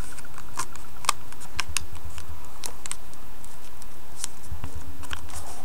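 Origami paper crinkling and crackling under the fingers as it is folded and creased, a scatter of irregular sharp clicks over a steady hiss.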